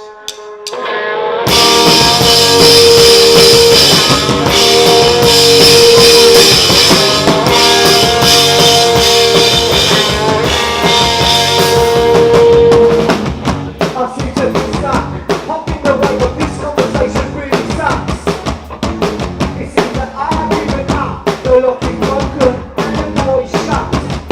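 Three-piece punk rock band (guitar, organ, drum kit) playing loud, riff-heavy rock live. About thirteen seconds in the full band drops away to a steady drum beat with lighter playing underneath.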